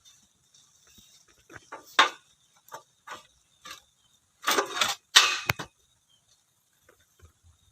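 Irregular knocks and clanks of metal parts being handled and fitted on a small water-well drilling rig, with a loud knock about two seconds in and a cluster of louder clanks a little past halfway.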